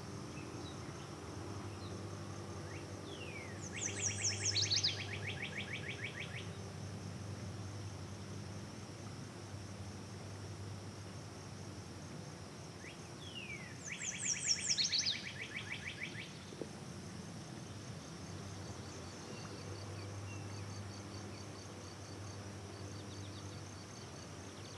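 A songbird sings the same short song twice, about ten seconds apart. Each song is a quick run of high notes falling in pitch, followed by a buzzy trill. A thin, steady, high insect drone runs underneath.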